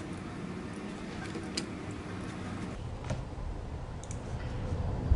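A few computer mouse clicks, about a second apart, over a steady low hum.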